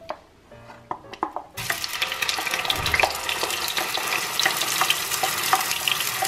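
Blended tomato hitting hot olive oil in a nonstick frying pan: a few light clicks, then about a second and a half in, a sudden loud sizzling and crackling that carries on steadily as the tomato is poured in.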